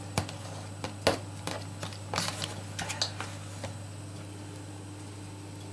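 A fork stirring and lifting wet sauerkraut in a plastic bucket: soft squelches and light clicks of the fork against the plastic, dying away after about four seconds, over a steady low hum.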